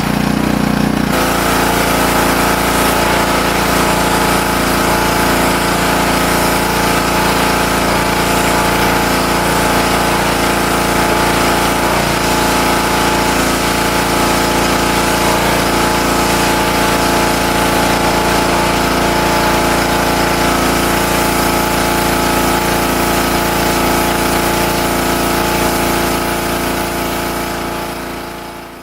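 Honda small engine of a pressure washer running steadily under its own power, its carburetor freshly cleaned after a year of sitting with old fuel. The sound fades out near the end.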